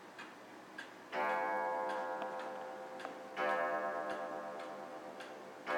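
Large antique Black Forest clock striking its gong: three strokes about two and a quarter seconds apart, each ringing out and slowly fading. Faint ticking of the movement is heard before the first stroke.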